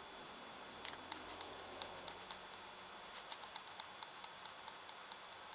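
Faint light clicks from the buttons of an Ultra-Gauge OBD-II display being pressed, about a dozen at uneven spacing over a low steady hiss.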